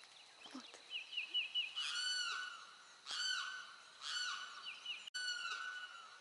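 Peacock calling: four loud, ringing calls about a second apart. A short run of quick high chirps comes just before them.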